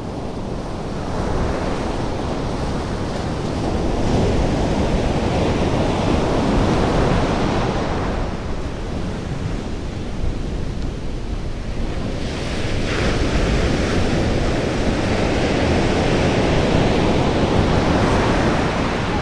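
North Sea surf breaking and washing up a sandy beach, swelling twice and easing in between. Wind rumbles on the microphone.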